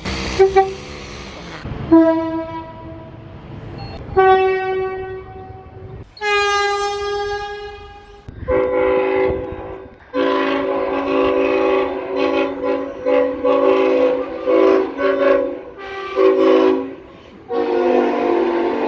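Train horns sounding, loud. First come three single-note blasts, the third bending slightly in pitch. Then a multi-note chord horn gives one long blast followed by a string of shorter blasts.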